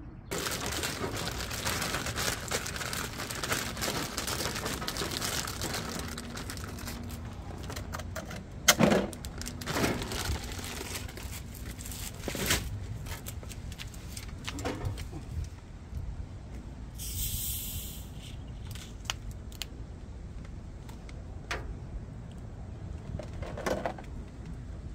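Small clicks and knocks of things being handled on a camp table. A dense crackling noise fills the first several seconds, and a short hiss comes about 17 seconds in.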